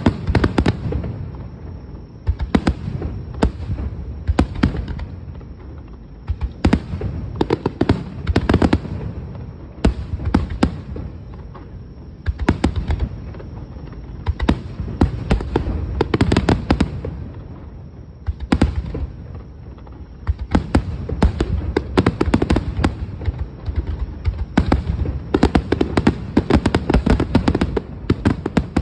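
Aerial fireworks finale: a dense barrage of shell bursts, sharp bangs over a continuous low rumble, with rapid volleys of crackling reports that come and go in waves.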